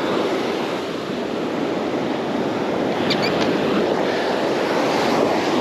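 Ocean surf washing onto the beach: a steady rushing noise.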